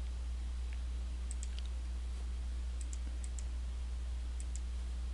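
A handful of faint computer mouse button clicks, several in quick pairs, over a steady low electrical hum on the recording.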